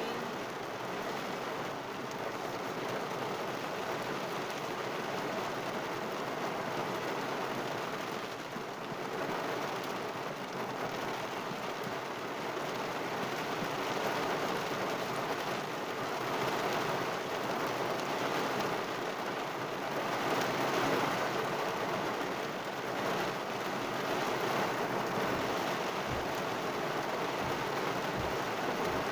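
Heavy rain pattering steadily on a car's roof and windows, heard from inside the car.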